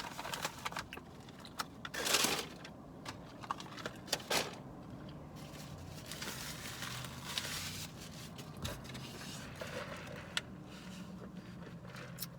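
Close-up eating sounds: chewing and the crinkling and rustling of fast-food paper wrappers and bag, in short irregular bursts with small clicks, over a steady low hum.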